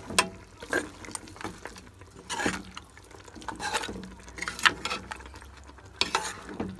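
A stirring utensil scraping and knocking against a cooking pot as oxtail stew and fresh vegetables are mixed together, with a few sharp clinks at uneven intervals.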